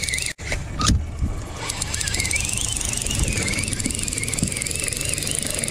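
Outboard motor running at trolling speed, a steady low hum, with a high whine that wavers up and down in pitch over it. The sound cuts out for an instant about half a second in.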